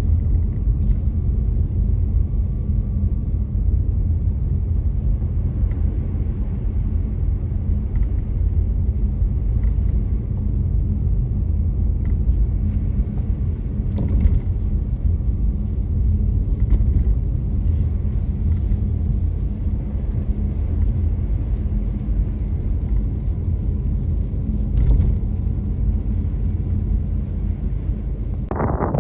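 Car driving on a snowy road: a steady low rumble of engine and tyre noise.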